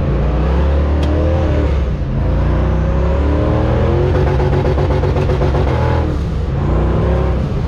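Twin-turbo LS V8 engine accelerating hard. Its pitch climbs steadily, dips back about two seconds in and again about six seconds in, then climbs again, over a heavy low rumble.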